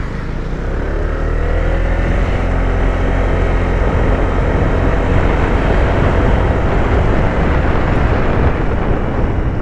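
Riding noise on a Honda Vario 160 scooter: loud wind rush with a hoodie flapping in the wind against the microphone. The scooter's single-cylinder engine note rises over the first few seconds as it picks up speed.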